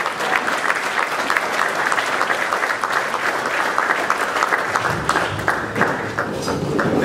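Large audience applauding: dense, steady clapping from many people.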